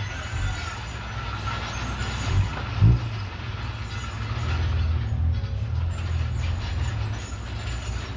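Komatsu D31PX bulldozer's diesel engine running steadily under load, with a couple of low thumps between two and three seconds in, the louder one near three seconds.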